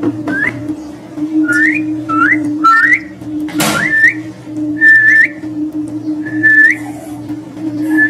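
About eight short whistled notes, each sliding upward and ending on a briefly held high pitch, spaced roughly a second apart, over a steady low hum. A brief harsh burst of noise comes near the middle.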